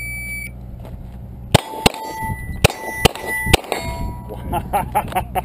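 A shot timer beeps once, then a pistol fires five shots in about two seconds, each followed by the ring of a steel target plate being hit.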